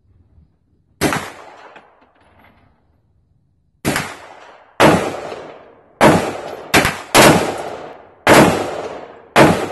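Machine gun fired one round at a time: about eight separate loud shots at uneven gaps of roughly half a second to three seconds, each crack trailing off in echo.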